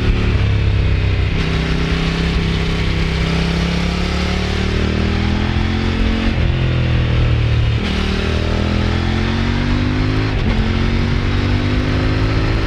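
Kove 800X Pro's parallel-twin engine and exhaust pulling under throttle. The engine note climbs and then drops sharply about four times as gears change or the throttle is rolled off, with wind rushing over the microphone.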